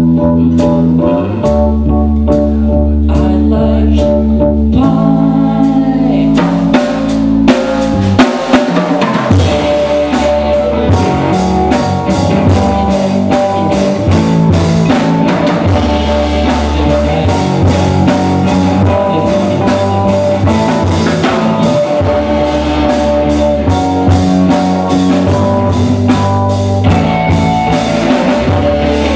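Live rock band playing instrumentally: electric guitar, electric bass, keyboard and drum kit. The drumming grows much busier about six seconds in, with a few loud hits around eight seconds, then a steady, dense beat under the guitars and keys.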